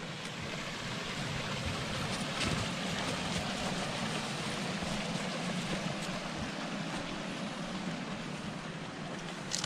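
Steady rushing of river water, swelling a little in the first few seconds and easing toward the end.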